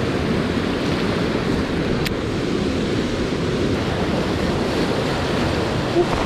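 Steady rushing noise of wind on the microphone and flowing river water, heaviest in the low end, with one faint click about two seconds in.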